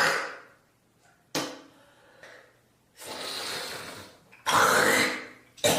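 A person coughing hard: a sharp cough about a second in, two longer rasping, hacking exhalations in the middle, and another sharp cough near the end.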